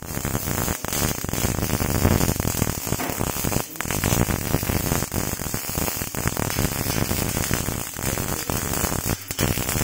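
MIG welding arc crackling and sputtering steadily, cutting out for an instant about a second in, near four seconds and near the end.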